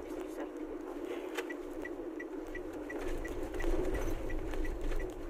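Steady road and engine noise inside a moving car. About a second and a half in there is a sharp click, followed by a light, even ticking about three times a second.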